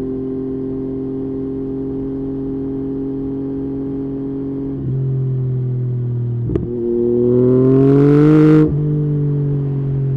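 Yamaha MT-09 inline-three motorcycle engine idling steadily. Past the middle there is a sharp pop, then one short rev that climbs for about two seconds and is cut off abruptly, falling back to idle.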